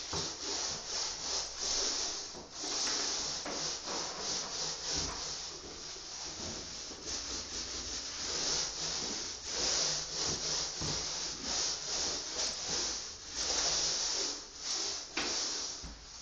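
Paint being spread across a surface in repeated rubbing strokes, a hiss that swells and fades about once a second.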